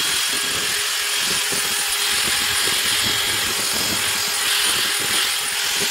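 Cordless drill running steadily with a paddle mixer, churning drywall joint compound in a plastic bucket.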